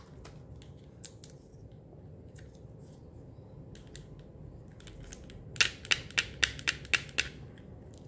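Plastic toy stethoscope being handled, its hard plastic parts clicking and clacking. A little past halfway comes a quick run of about seven sharp clicks within under two seconds.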